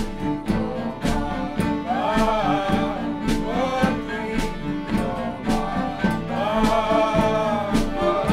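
Acoustic folk band playing live: a steadily strummed acoustic guitar with voices singing over it.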